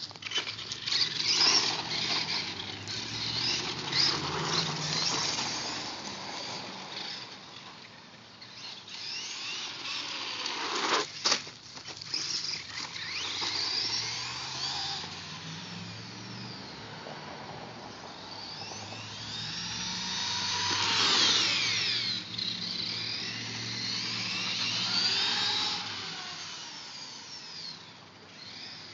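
Traxxas 1/16 Summit RC truck's electric motor and gears whining, the pitch rising and falling as it speeds up and slows. A single sharp knock comes about eleven seconds in.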